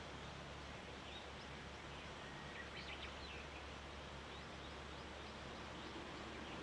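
Faint early-morning outdoor ambience over a forested mountainside: a steady hiss with a low hum beneath, and a few faint, short bird calls about one second in and again around the middle.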